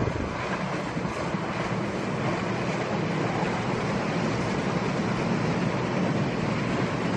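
Electric train running on the rails: a steady rumble with rail noise, heard from aboard the moving train.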